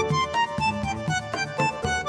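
Background music: an instrumental tune of many short notes in quick succession.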